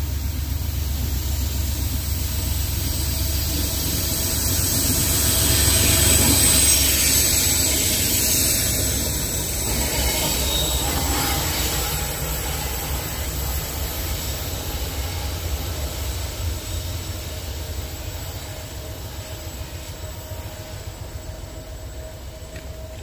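Norfolk Southern diesel locomotives running light, with no train behind them; a steady engine rumble with hiss, loudest about six seconds in and slowly fading after.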